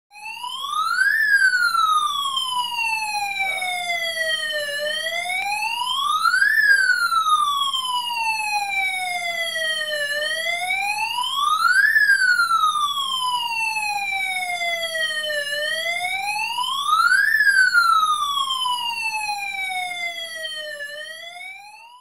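Electronic siren circuit sounding through a small loudspeaker: a wailing tone that rises quickly and falls slowly, repeating about every five seconds, four times, before fading out near the end.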